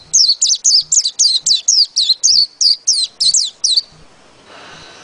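White-eye (pleci) singing a fast, continuous run of high, sweeping whistled notes, about four a second, that stops about four seconds in; a faint steady hiss follows.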